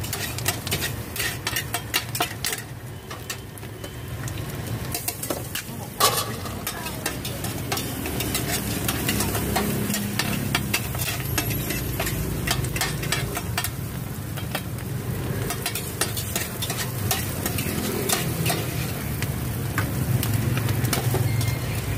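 Metal spatulas scraping, chopping and clinking against a flat iron griddle while rice-flour cake cubes and eggs sizzle in hot oil. Frequent sharp clicks of steel on iron, with one loud clack about six seconds in.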